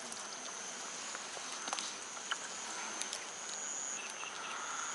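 Crickets trilling steadily at a high pitch, with a few faint clicks.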